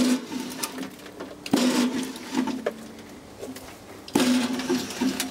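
A Century 2¼ horsepower single-phase repulsion-start induction motor driving a shredder, jogged in short runs. Three times it starts suddenly with a steady hum and a rattle, then dies away within about a second.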